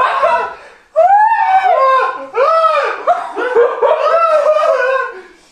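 A man laughing loudly and hysterically: a short burst, then from about a second in a run of high-pitched, rising-and-falling whoops, about two a second, that trail off near the end.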